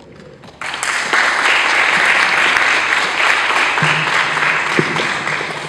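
Audience applauding. The clapping starts suddenly about half a second in, holds steady, and dies away near the end.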